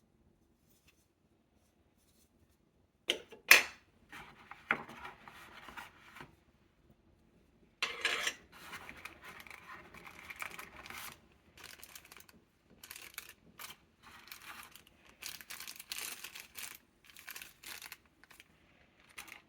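Packaging being handled: two sharp clicks about three seconds in, then on-and-off rustling, rubbing and tearing, with a short pause in the middle.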